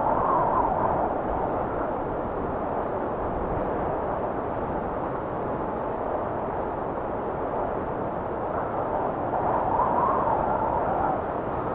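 Wind blowing in a steady rush that swells into gusts twice, just after the start and again near the end.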